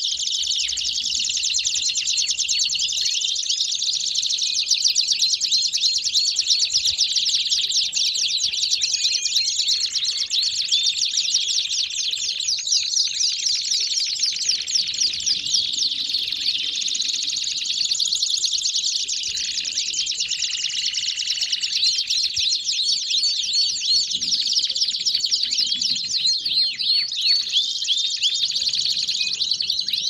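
Several domestic canaries singing together in a dense, continuous chorus of rapid trills, rolls and warbles that overlap one another.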